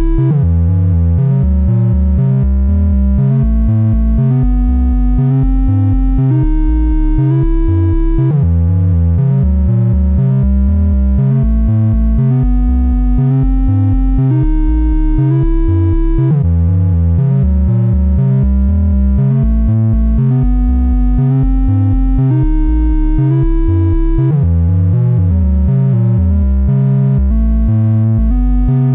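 Analog modular synthesizer sequence: a stepped melodic line over a pulsing bass pattern made by the Noise of Antimatter Subshaper's subharmonic and clock-divider outputs. The pattern repeats about every eight seconds.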